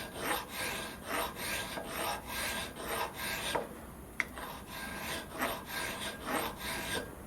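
Hand file rasping across a metal fitting in quick back-and-forth strokes, about two a second, filing a small flat where the gas jet hole will be drilled. The strokes pause for about a second midway, with a single sharp tick.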